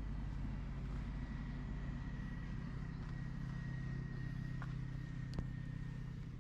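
A steady low engine hum, with a faint thin high tone running through the middle of it.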